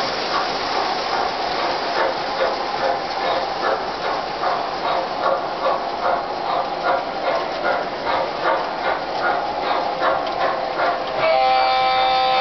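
O gauge model trains running, with a steady rhythmic clacking about two to three times a second that gets slightly faster. Near the end a locomotive's whistle blows for under two seconds, several tones at once.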